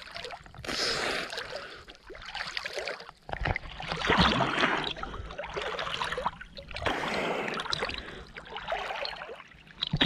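Water splashing and swishing with each swimming stroke, a surge of splashing about every second and a half, heard right at the water's surface.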